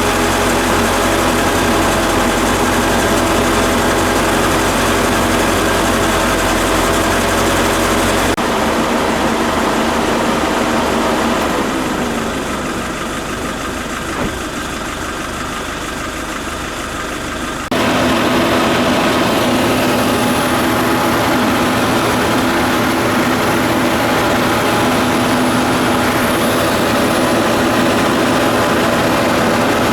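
Nissan NV350 Caravan's diesel engine idling steadily. The sound changes abruptly about eight seconds in, dips somewhat, and comes back up suddenly just before the halfway point with a different, brighter tone.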